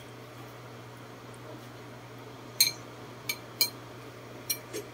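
Metal spoon clinking against ceramic plates and bowls: about five sharp clinks in the second half, over a low steady hum.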